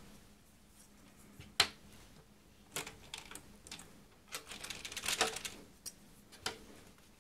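Hard plastic clicks and clatter from a plastic electrical panel and its DIN-rail circuit breaker modules being handled. There is a sharp click, another about a second later, a short spell of rattling clatter midway, and one more click near the end.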